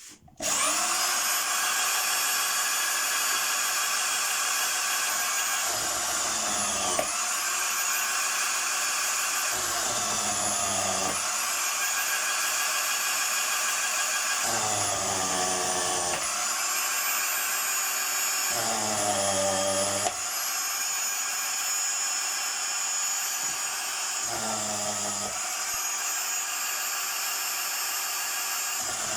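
Homemade willow-rod shaving machine running with a steady high motor whine. Every four to five seconds the pitch sags and recovers, with a rougher grinding as each split rod is fed through and shaved into a strip under load.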